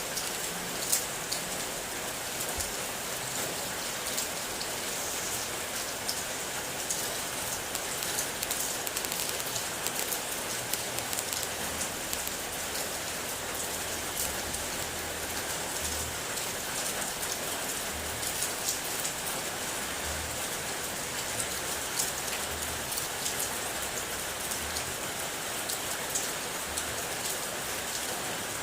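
Steady rain, with many separate drops tapping sharply on a hard surface over an even hiss.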